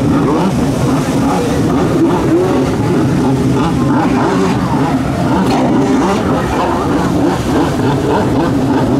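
Yamaha two-stroke 1200cc stand-up jet ski engines running hard and revving up and down as the skis carve and spin on the water.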